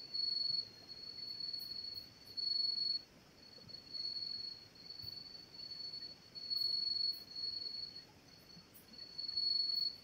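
Crickets trilling steadily on one high note, swelling much louder four times for about half a second to a second each.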